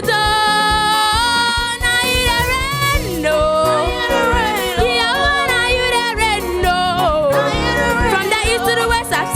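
A child singing a gospel song, holding long, wavering notes and vocal runs without clear words, over backing music with a drum beat.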